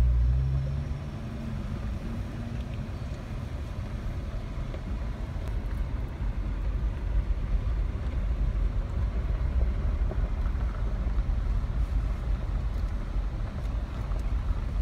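Jeep driving over a gravel dirt trail, heard from inside the cabin: a steady low rumble of engine and tyres, rising slightly in loudness later on.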